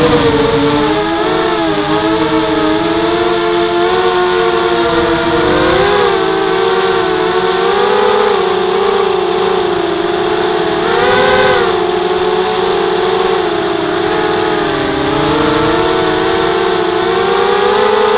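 Four brushless motors (RCTimer 2300 kV) spinning 5x3 propellers on a 250-size quadcopter, whining in several close tones whose pitch wavers up and down with the throttle. About eleven seconds in the pitch jumps up in a brief throttle punch, then settles back.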